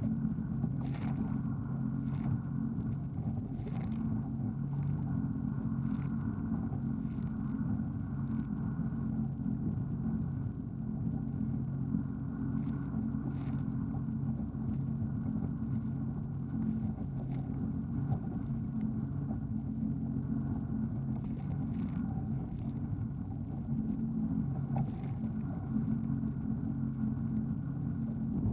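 Jet ski engine running with a steady low drone, with short sharp knocks scattered through it.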